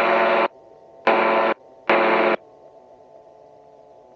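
Gyroplane engine and propeller noise heard over the headset intercom. It cuts off abruptly about half a second in, comes back in two short bursts of about half a second each, then drops to a faint steady engine hum, as the microphone opens and closes.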